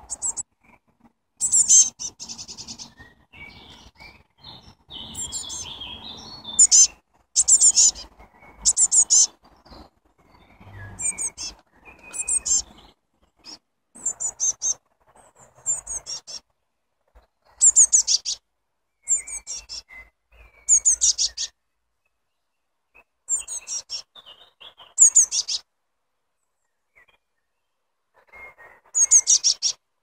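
Blue tits calling: short, high chirping phrases repeated every second or two, with gaps of silence between them.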